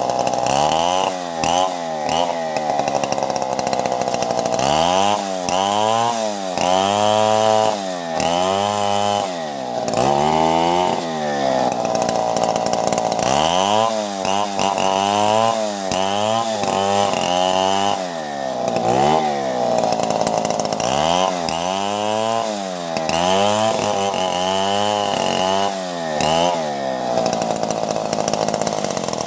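Two-stroke chainsaw cutting wood lengthwise to make planks, its engine pitch repeatedly rising and falling, roughly once a second, as the chain works through the cut.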